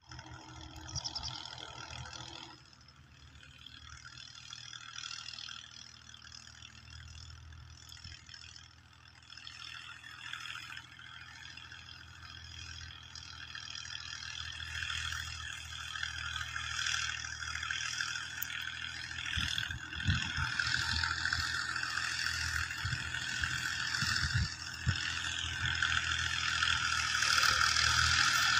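Fiat 480 tractor's three-cylinder diesel engine running steadily under load as it works a tilled field, growing louder as the tractor draws closer.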